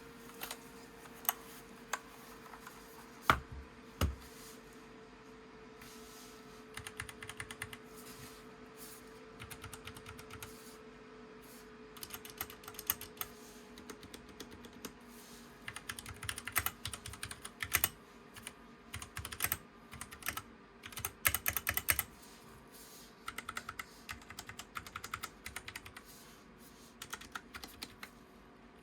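Typing on a DREVO Seer PRO Mini 61-key mechanical keyboard with Gateron Brown switches: a few separate key clacks in the first few seconds, then bursts of quick keystrokes broken by short pauses.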